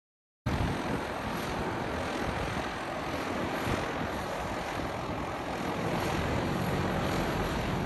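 Engines of a small twin-engine propeller plane running steadily on the ground. The sound begins abruptly about half a second in.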